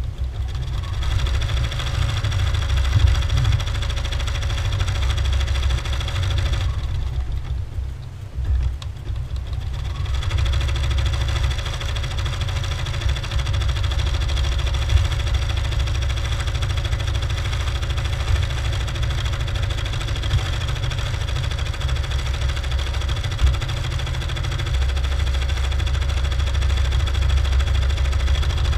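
Bernina embroidery machine running steadily, its red cutwork needle punching through the fabric along the cutting line while the hoop moves. Its higher sound drops away for about three seconds around seven seconds in, then picks up again.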